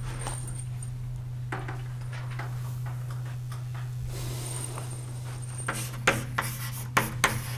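Writing on a lecture board: light rubbing, then from about six seconds in a quick run of sharp taps and scratches as the lecturer writes, over a steady low electrical hum.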